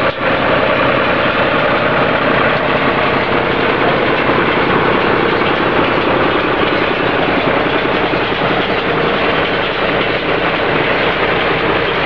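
Tractor engine running steadily while a Welger WSA 350 baler works alongside, its pick-up taking in a windrow of hay. Together they make one loud, continuous machinery noise.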